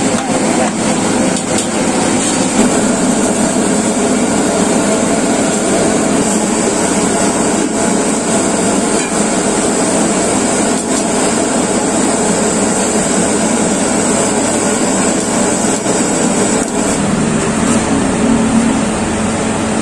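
Steady, loud rushing noise with no rhythm or pitch changes, running on unchanged while the pork boils in the pressure cooker.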